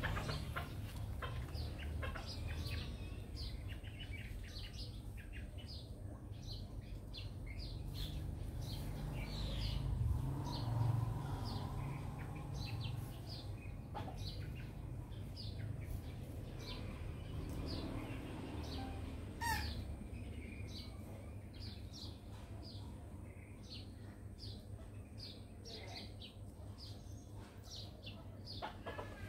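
Small birds chirping: short high chirps, about one or two a second, keep repeating over a steady low background noise. One sharper call rises quickly about 19 seconds in.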